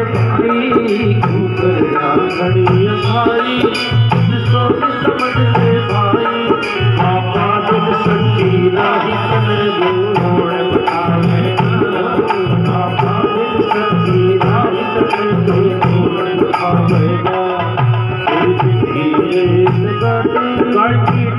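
Instrumental passage of live Hindi devotional bhajan music: a steady, even hand-drum rhythm under a keyboard melody, with no singing.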